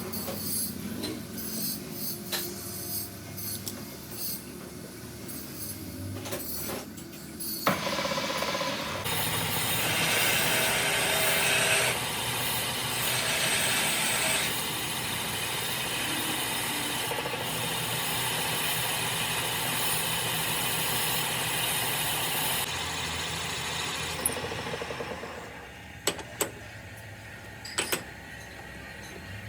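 Metalworking tool noise: a power tool starts about eight seconds in and runs steadily as a loud, even, noisy sound for roughly fifteen seconds, then stops. A few sharp knocks follow near the end.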